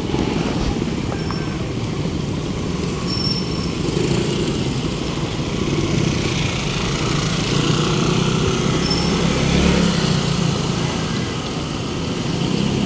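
Steady city street traffic, motor vehicles running past, with one engine passing close about eight to ten seconds in.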